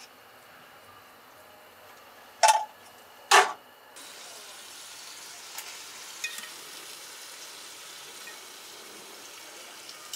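A metal serving spoon scrapes sharply against a pot twice, a little under a second apart, as food is dished out. A steady sizzling hiss follows, with a few light clinks of utensils.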